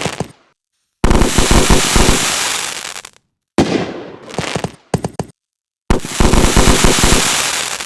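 Fireworks going off: rapid strings of sharp bangs and crackling in several loud bursts, each starting suddenly and cutting off abruptly into silence.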